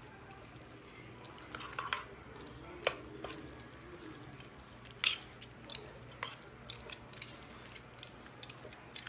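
Metal kitchen tongs tossing spaghetti and beef strips in a creamy gorgonzola sauce in a glass baking dish: soft wet squishing with scattered light clicks and taps of the tongs.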